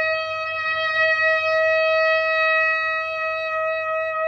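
Tenor saxophone holding one long, steady high F, the top note of the instrument's regular range.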